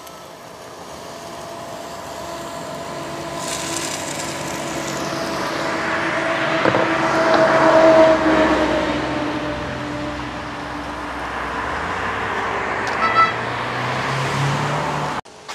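A motor vehicle passing by, growing louder to a peak about eight seconds in and then fading, its engine note dropping slightly as it goes. Under it is a steady sizzle of Spanish mackerel burgers frying over the fire. Both cut off suddenly near the end.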